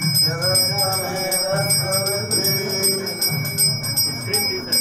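Temple hand bell rung rapidly and without a break during aarti, over chanting voices.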